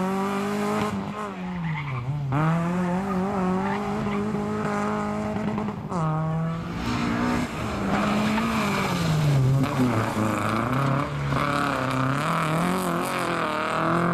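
Small hatchback rally cars' engines revving hard through a tight slalom, pitch swinging up and down every second or two as the drivers lift and accelerate between turns, with some tyre squeal. The first car is a Fiat Seicento; about six seconds in, the sound jumps to a second car.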